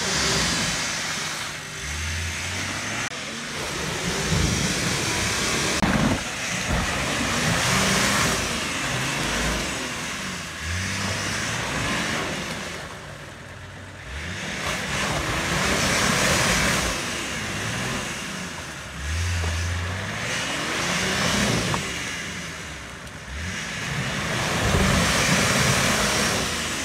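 Nissan Patrol off-roader's engine revving in repeated surges a few seconds apart, its wheels spinning and churning through deep mud.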